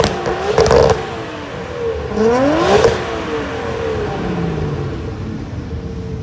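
Car engine revved hard twice, pitch climbing quickly each time and falling back toward idle, with a brief crackle near the top of the first rev.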